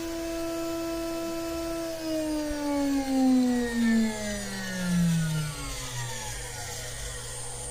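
CNC router spindle whining steadily at about 20,000 RPM, then switched off about two seconds in and spinning down, its pitch falling smoothly over the next four seconds. A low steady hum continues underneath.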